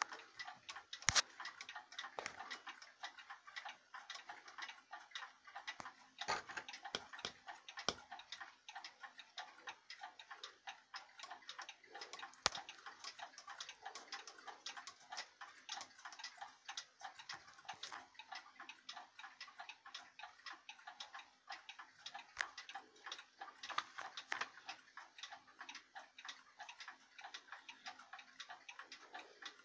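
Mechanical cuckoo clock ticking steadily as its pendulum swings, a fast run of faint clicks with a few louder ones, the loudest about a second in.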